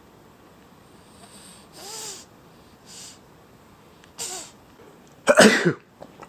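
A domestic cat sneezing four times in quick succession, the last sneeze much the loudest.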